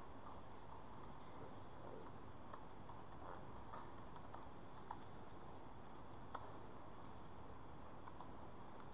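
Faint, irregular clicking of a computer keyboard being typed on, over a steady low hiss.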